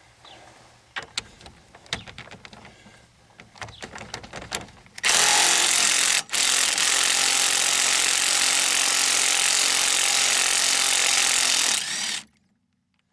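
A few light clicks and knocks, then a Ryobi half-inch impact wrench hammering loudly for about seven seconds, with one brief break, as it backs out a rear shock absorber's mounting bolt. It stops suddenly near the end.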